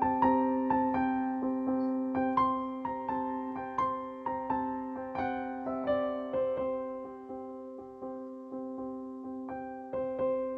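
Soft electric-piano music: a gentle melody of struck notes that ring and fade over a held low note.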